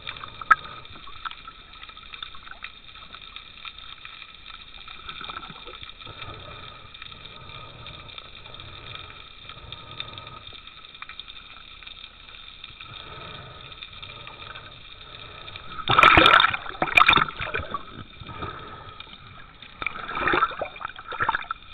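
Muffled underwater sound picked up by a mask-mounted camera, with a steady high hum running throughout. There are two loud clusters of bubbling and water rushing, one about 16 seconds in and one near the end.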